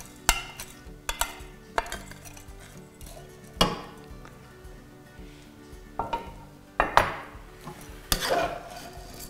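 A spoon clinking and scraping against a pot as washed, soaked long-grain rice is stirred into hot vegetable oil, with a light sizzle. There are several sharp clinks, the loudest about three and a half and seven seconds in.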